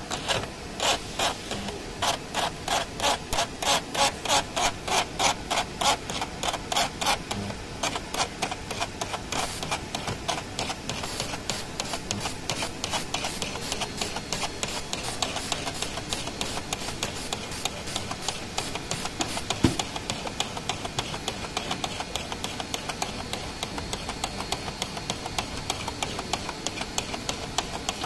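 Electrospark deposition coating: the vibrating electrode of an SZ-BF100 EDM coating torch sparking against a stainless steel plate, an evenly pulsing crackle of about four pulses a second that turns quicker and quieter after about eight seconds. One sharp click near the middle.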